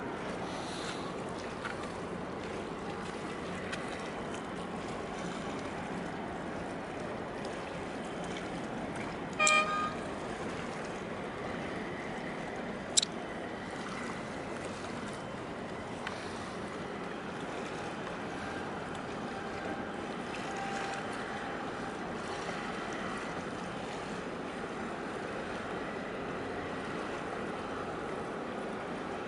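Steady rushing harbour noise of water and a large ship moving close by. About ten seconds in comes a short, high horn beep, and a few seconds later a single sharp click.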